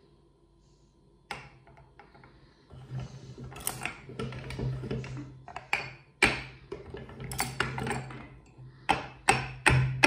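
Hard-candy lollipops being crushed in a metal meat grinder: a single sharp snap about a second in, then repeated sharp cracks and crunches of breaking candy over a steady low drone, loudest near the end.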